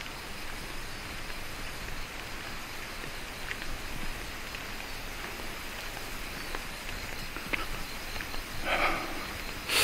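Steady night chorus of calling insects, like the ringing of bell crickets, with a few faint clicks and a short soft sound near the end.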